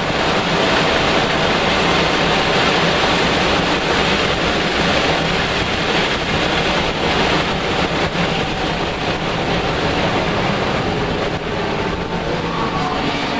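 Lexus IS300 race car's 2JZ-GE inline-six running hard and steady, heard from inside the cabin under heavy wind and road rush. The sound dips slightly near the end.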